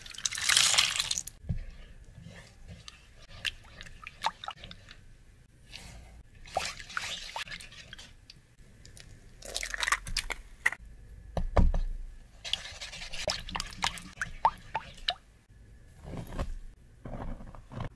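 Liquid ingredients splash as they are poured into a wooden bowl, then a silicone spatula stirs the wet batter with many small wet clicks and scrapes. Near the end flour is poured in with a soft rushing sound.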